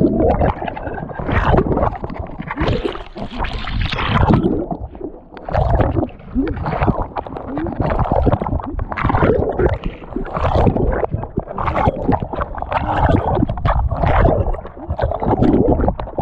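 Sea water sloshing and gurgling close to the microphone in irregular surges, with a deep rumble under the splashing.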